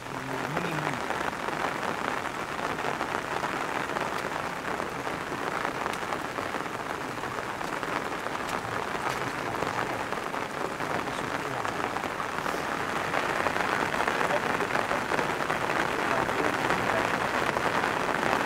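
Heavy rain falling in a steady, dense patter, a little louder in the second half.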